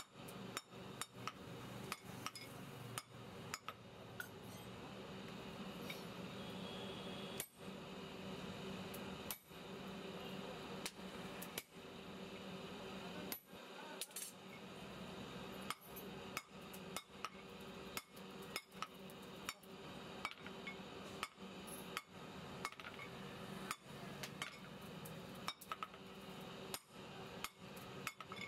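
Hand hammer striking red-hot steel on a steel anvil block: a run of sharp metallic blows, about one or two a second, sparser in the middle, over a low steady hum.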